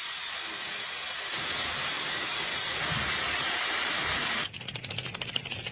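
A steady hiss for about four and a half seconds, which then breaks off into a quieter, fast, irregular crackle of small clicks.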